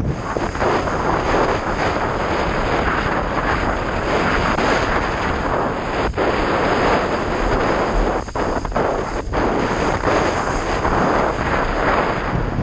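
Wind buffeting the microphone of a mast-mounted camera while a windsurfer planes across the water: a loud, steady rush of noise, with a few brief dips around the middle.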